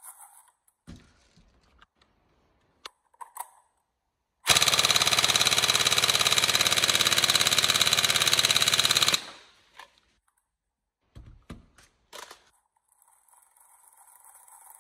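Upgraded Tokyo Marui 416 NGRS airsoft electric rifle, fitted with a Warhead high-speed motor, firing one long continuous full-auto burst of about four and a half seconds, starting about four seconds in. A few light clicks come before and after it.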